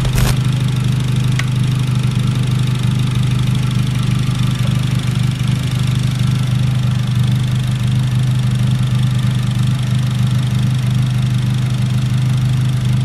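Honda Civic Si's 2.4-litre K24 four-cylinder, fitted with an RBC intake manifold, idling steadily while its cooling system is topped up and bled through a funnel in the radiator neck.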